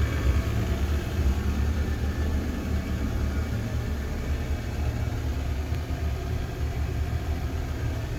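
Gas conversion burner running in a former oil furnace: a steady low rumble from its combustion-air blower and flame.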